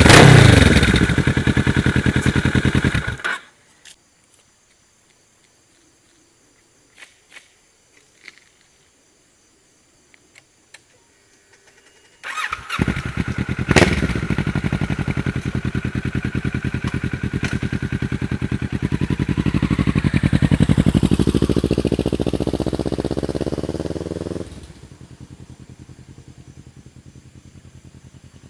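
Kawasaki Ninja 650R's parallel-twin engine through a replica Akrapovic slip-on exhaust. It runs loud and comes down in revs, then stops about three seconds in; only a few faint clicks follow. It fires up again about twelve seconds in and runs with a slow rise and fall in revs, then drops sharply to a much fainter running sound near the end.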